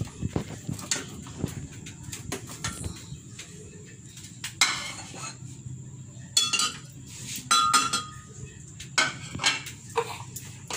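Sliced onion being put into a glass blender jar and the jar handled on its base: scattered knocks and clinks of glass and kitchenware, a few with a short ring.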